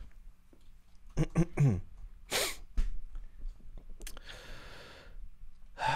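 A man's stifled laughter: a few short voiced chuckles, then a sharp breathy snort and later a longer breathy exhale.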